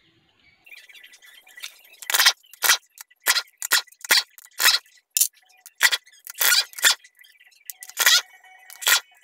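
Handheld power driver running in short, sharp bursts, about a dozen in quick succession, as it spins out the bolts holding a transmission valve body.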